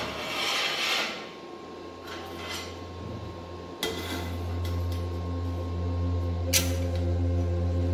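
Steel flat bar scraping and clinking against the vertical bars of an iron window grille as it is laid across them, with two sharp metal clicks about four and six and a half seconds in. A steady low hum sets in with the first click.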